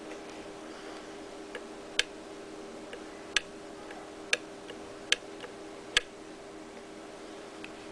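The slide of a homemade Halo 3 M6G pistol replica being worked, giving sharp clicks: five loud ones about a second apart with a few fainter ones between, over a steady faint hum.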